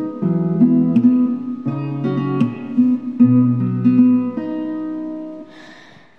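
Music: acoustic guitar playing a chord pattern in the song's instrumental gap, the last chord ringing out and fading away near the end.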